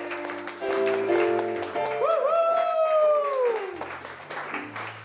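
Music with held notes, one long note starting about two seconds in and sliding down at its end, over hand-clapping.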